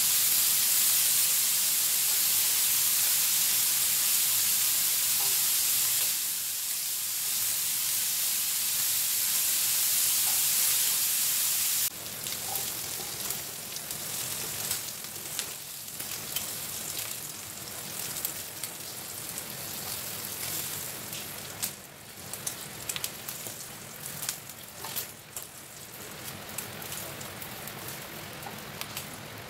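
Pork belly sizzling in a ridged grill pan, a loud, even frying hiss. About twelve seconds in, it drops suddenly to a quieter sizzle scattered with short clicks and taps of tongs against the pan as the pieces are turned and lifted out.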